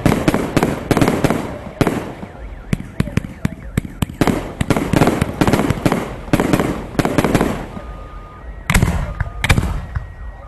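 A "Volcano 360" firework going off: dense sharp cracks and bangs in rough surges about once a second, easing off about eight seconds in before loud cracks return.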